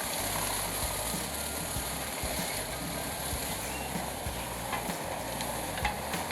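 Large wood chipper running steadily, its engine humming under the noise of the chipping, with a few short sharp clicks later on.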